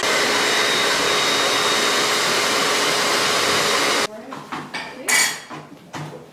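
Electric sewing machine running steadily at speed, stitching fabric; the loud, even clatter cuts off suddenly after about four seconds. Quieter scattered clicks and knocks follow.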